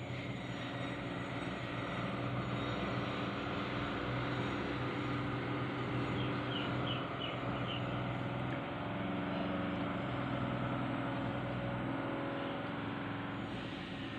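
A large engine running steadily: a low mechanical drone with a steady hum, swelling over the first couple of seconds, then holding level.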